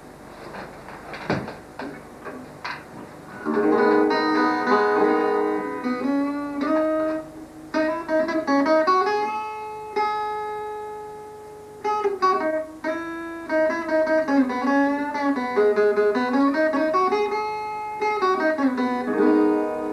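Acoustic guitar played by hand without singing, picked notes and chords ringing on. It starts about three and a half seconds in, after a few soft knocks.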